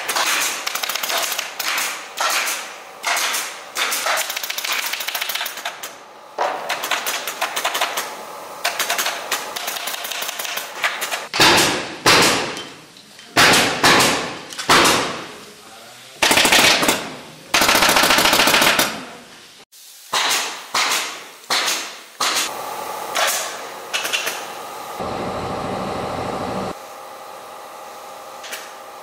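Pneumatic upholstery staple gun firing in rapid runs of shots into a wooden sofa frame. A steady rushing noise lasts a couple of seconds near the end.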